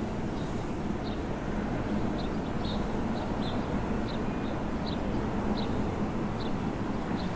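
Urban outdoor ambience: a steady low rumble with a hum band, like distant traffic or building ventilation. Short high chirps recur irregularly over it, roughly every half second to a second.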